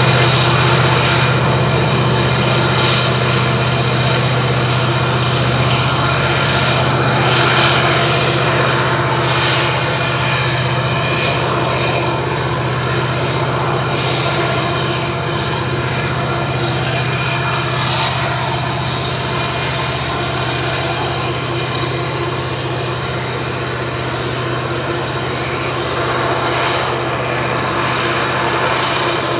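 Diesel-electric locomotive working hard under load, hauling a loaded coal train up a mountain grade: a steady low engine drone over the rumble of steel wheels on the rails, slowly fading as the train draws away.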